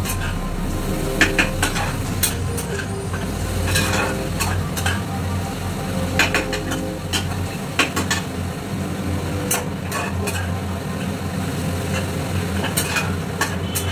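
Metal spatula scraping and clicking against a karahi as grated carrot is stirred and fried in ghee, with a steady sizzle and a low steady hum beneath. The carrot is being fried until its watery moisture cooks off.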